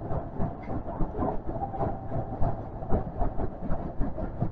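Osaka Metro 400 series train running through a tunnel, heard from inside the front car: a steady rumble of the wheels on the rails with frequent irregular clicks and knocks. A faint steady whine sits on top of it for a second or so, about a second in.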